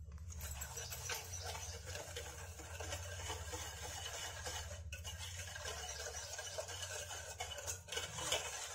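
Wire whisk stirring ghee, curd and powdered sugar together in a stainless steel bowl: a continuous swishing scrape of the wires through the mixture, with an occasional click of the whisk against the bowl.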